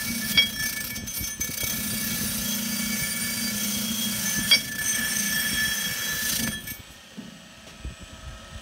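Wire wheel on a Baldor 334B 3/4 hp three-phase buffer grinder scouring a steel plate pressed hard against it: a loud, steady hissing scratch with ringing high tones over the motor's hum, with two sharp ticks. The motor holds its speed under the load. About six and a half seconds in, the steel comes off the wheel and only the quieter sound of the running motor is left.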